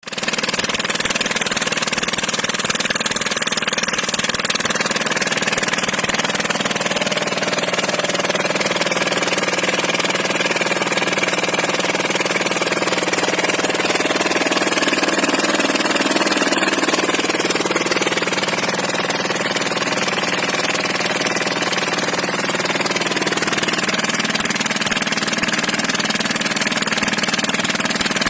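Small diesel engine of a portable drilling machine running steadily.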